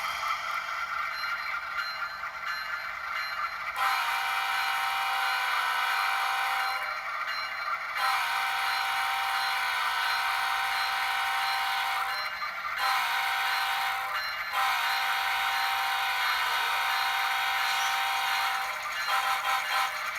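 Loksound sound decoder in an InterMountain ES44DC model diesel locomotive blowing its multi-chime air horn through the model's small speaker in the grade-crossing pattern: two long blasts, a short one, then a long one. A steady low hum runs beneath it.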